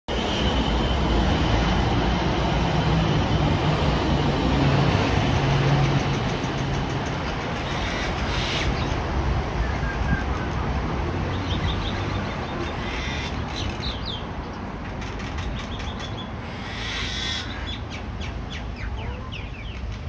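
Common mynas calling in short chirps and brief whistles, mostly in the second half, over a steady low rumble that is loudest in the first few seconds.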